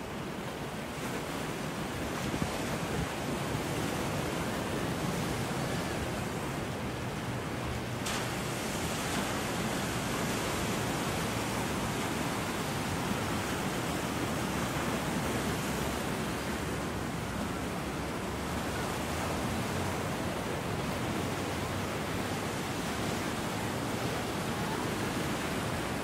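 Ocean surf breaking and washing over a coastal rock shelf: a steady, even rush of waves.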